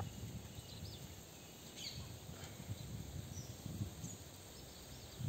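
Faint open-air lake ambience: a few scattered distant bird chirps over a low, irregular rumble.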